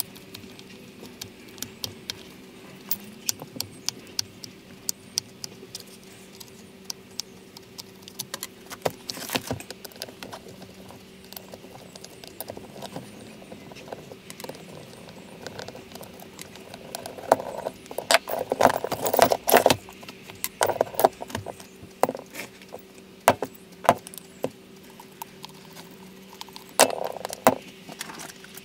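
Scattered clicks and clatter of small metal parts and tools being handled on a workbench, busiest for a few seconds past the middle, over a steady low hum.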